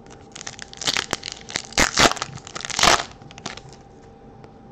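Foil wrapper of a Topps Chrome baseball card pack being torn open and crinkled: a run of crackling rustles over about three seconds, loudest near the middle.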